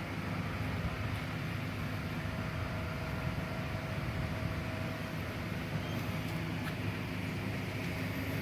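Steady low mechanical hum with a faint constant whine above it, unchanging throughout.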